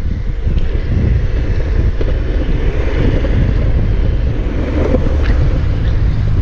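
Loud, steady wind buffeting on an action camera's microphone as it moves along at riding speed.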